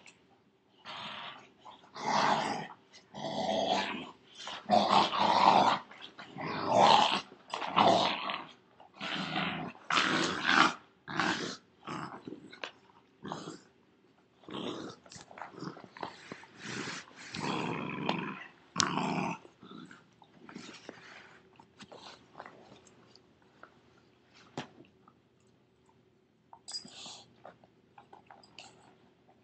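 A pit bull puppy and a larger dog growling in play as they tug at a bicycle tire, in repeated rough bursts. After about two-thirds of the way through it quietens to scattered small sounds, with one short burst near the end.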